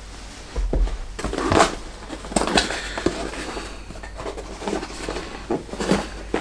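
A small cardboard camera box being handled and opened: scattered rustles, scrapes and a few light knocks as the seal is broken and the lid is lifted.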